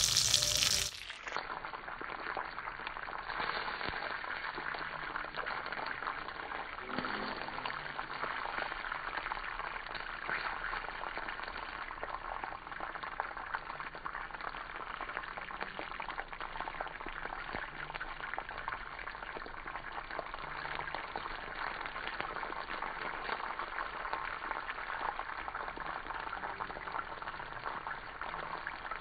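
Hot oil sizzling around two whole scored fish frying in a wok: a steady crackling sizzle. A louder sound fades out within the first second.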